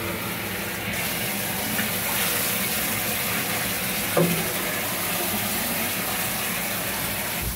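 Handheld shower sprayer running steadily onto a wet dog's coat, rinsing out conditioner, then shut off right at the end. A short pitched squeak about four seconds in.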